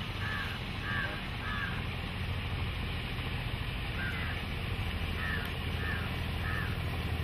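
Steady low hum of a boat engine, with a bird giving short repeated calls. The calls come in a run of about four near the start, a single call about four seconds in, and another run of about four past the middle.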